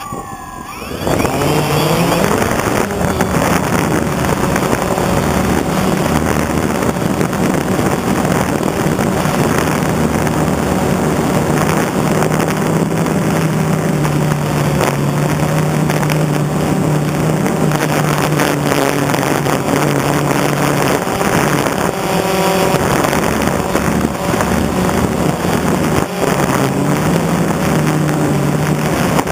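Quadcopter drone's electric motors and propellers spinning up with a rising whine in the first second, then running loud and steady in flight, a buzzing hum whose pitch shifts slightly over a rush of propeller wash, heard from a camera mounted on the drone.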